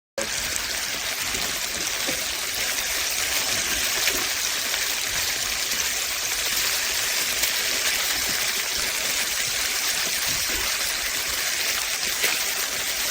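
Water running steadily from a tap in an even rush. It starts abruptly at the outset.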